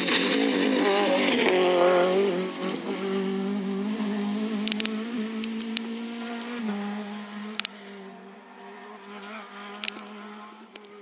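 Renault Clio Ragnotti rally car's two-litre four-cylinder engine, loud and wavering in pitch as the car passes close by, then fading as it drives away. The engine note drops about two thirds of the way through. A few sharp clicks are heard along the way.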